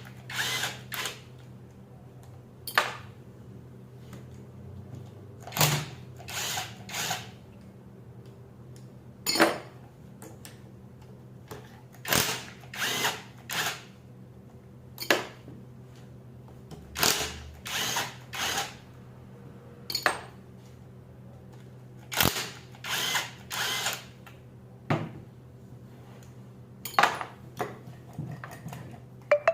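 Power tool, such as a drill or driver, run in short bursts, usually three or four quick pulses in a row, repeating every few seconds, as fasteners are worked loose on a Delco Remy starter.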